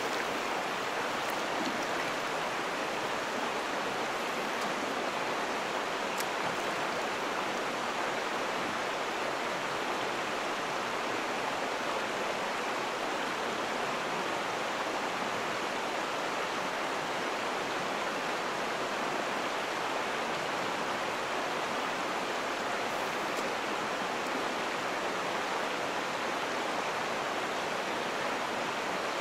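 Mountain stream running: a steady, even rush of water with no change.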